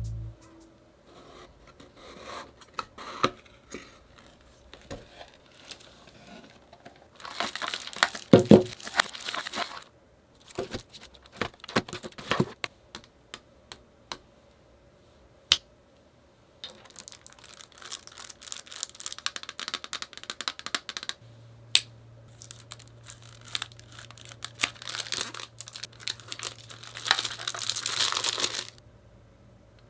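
Cardboard mailer box and plastic-wrapped CD jewel cases being handled: scattered taps and clicks, then stretches of crinkling and tearing as cellophane shrink-wrap is peeled off a CD jewel case, the longest near the end.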